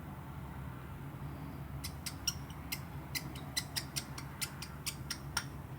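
A run of about fifteen light, sharp clicks, about four a second, starting about two seconds in, from a precision screwdriver driving the small pentalobe screws into the bottom of an iPhone X. A steady low hum underneath.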